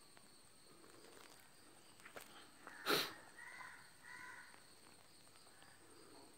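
A loud, harsh animal call about three seconds in, followed by a few shorter calls.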